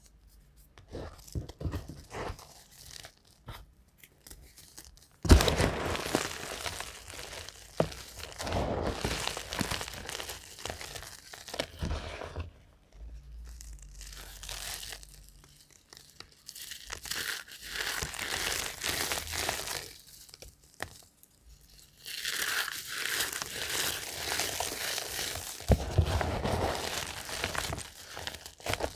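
Blocks of dyed gym chalk crushed and crumbled between bare hands: dry, crumbly crunching that comes in bouts. The first few seconds hold only a few small ticks, then the crunching starts with a sharp crack about five seconds in.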